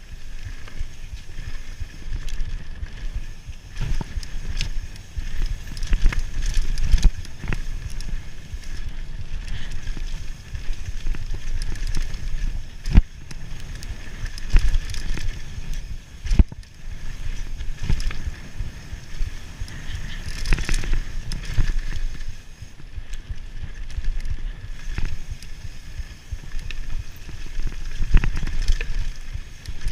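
Mountain bike descending a rough dirt singletrack at speed: a steady low rumble from the tyres and the ride, broken by frequent sharp knocks and rattles as the bike hits bumps.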